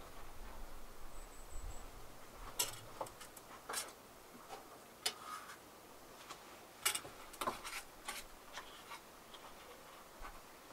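Cutlery clicking and tapping against a small metal pan while eating: a few light, sharp clicks spaced about a second apart, with a faint low rumble in the first two seconds.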